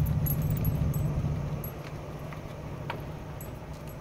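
Camper van driving slowly, heard from inside the cab: a low engine and road rumble that drops off about halfway through, with light rattling clicks.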